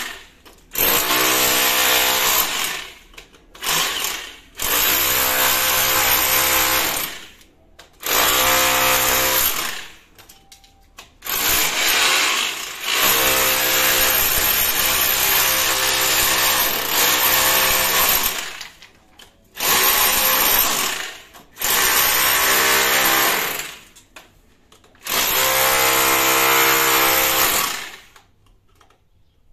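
Bosch SDS rotary hammer with a chisel bit hammering into a stuccoed brick wall, chipping away plaster and brick. It runs in repeated bursts of a few seconds, stopping briefly between them.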